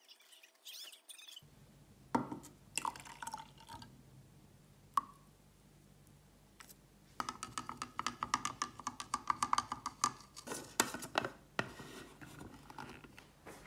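A few sharp clinks of glass, one ringing briefly, then about three seconds of liquid being poured, followed by more light knocks and clicks.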